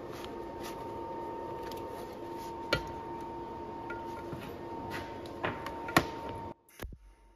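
Gloved hands setting a small MIG welding torch and a leather heat shield against a steel forklift axle. Two sharp clicks about three and six seconds in are heard over a steady hum with a thin whine. The hum cuts out about six and a half seconds in, and the MIG arc starts crackling and spitting at the very end.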